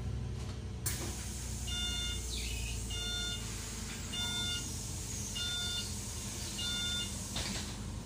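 An electronic beeper inside a LiAZ-5292.71 city bus sounds five short beeps, about one every 1.2 seconds, over the steady low hum of the bus standing at idle. There is a sharp click near the start and a brief rush of noise near the end.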